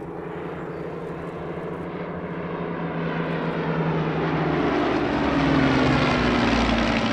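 Hawker Hurricane Mk I and Supermarine Spitfire Mk V flying past together, the sound of their Rolls-Royce Merlin V12 piston engines growing steadily louder to a peak about five to six seconds in. Near the end the engine note drops in pitch as they pass.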